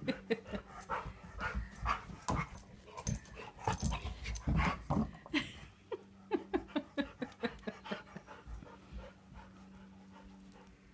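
Dogs playing, making short, quick dog noises that come thick and fast for about five seconds, then thin out to about three a second and fade near the end.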